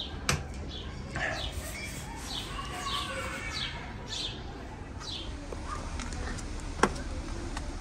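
Small birds chirping: a run of short, quick, falling chirps repeated every half second or so, over a steady low background hum. A sharp click sounds just after the start and a louder one near the end.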